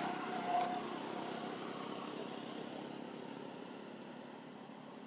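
Vehicle passing on a road, its noise fading slowly away, with one short steady note about half a second in.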